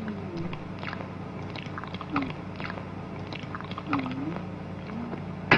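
A man eating beans ravenously from a metal pan with a spoon: loud chewing and slurping, the spoon clicking against the pan, and short low grunts. A sharp clack comes near the end.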